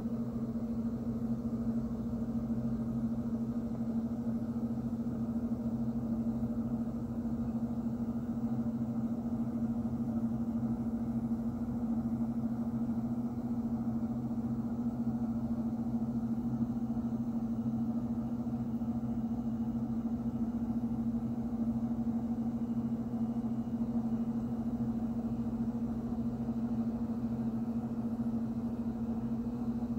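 Steady low hum at one constant pitch, with a second, lower tone beneath it and no change in level.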